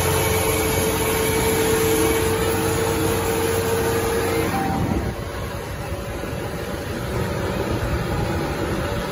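Tractor's diesel engine running at road speed, heard from on board with wind and road noise. The sound is steady, with a held tone in the first half; about five seconds in it drops a little and changes character.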